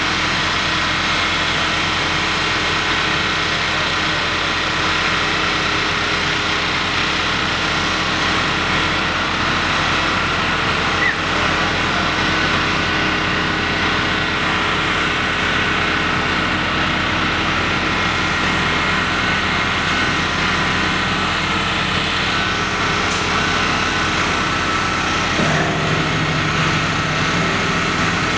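Telehandler engine running steadily while the machine holds and moves a steel beam, its note shifting near the end.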